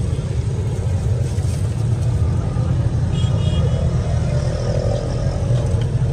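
Steady low mechanical rumble of street background noise, with a brief faint high-pitched tone about three seconds in.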